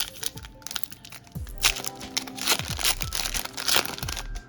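Foil Pokémon booster pack wrapper being torn open and crinkled, in a dense crackling run from about a second and a half in to near the end.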